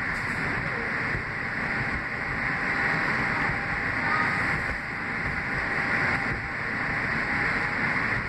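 Kawasaki R160B subway car with Siemens propulsion running along the elevated track, heard from inside the car: a steady rolling rumble and hiss of wheels on rail with a faint steady whine.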